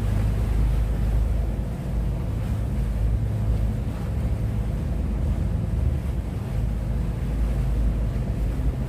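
Wind blowing over the phone's microphone, a steady low rumble.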